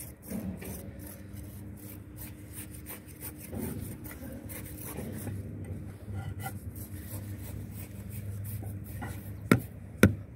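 Steel trowel scraping and pressing cement mortar against the side of a concrete heel kerb, in an uneven rasping rhythm. Near the end, two sharp knocks as a hammer taps the top of the kerb to bed it level.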